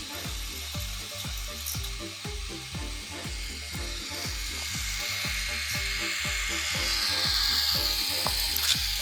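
K'nex roller coaster trains rattling along their plastic track, the clatter swelling about seven seconds in, over background electronic music with a steady bass beat.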